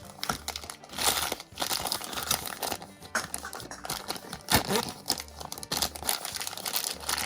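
Plastic blind-bag wrappers crinkling and rustling in irregular crackles as small toy doll pieces are unwrapped.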